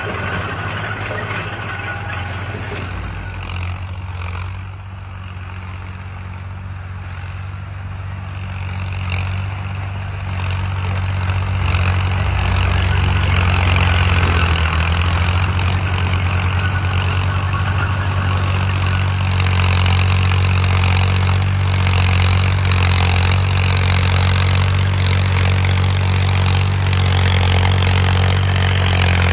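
Fiat tractor's diesel engine running steadily under load while pulling a plough, with a deep, even hum; it grows louder about a third of the way in and holds there.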